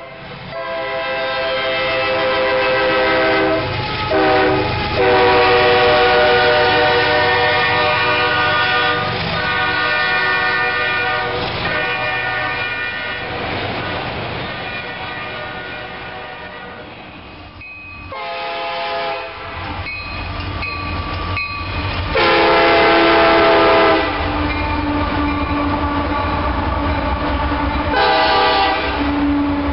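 Freight locomotive air horns sounding a series of long chord blasts, the longest stretch held for many seconds and later ones shorter. Underneath, the low rumble and wheel clatter of the freight train rolling past on the rails.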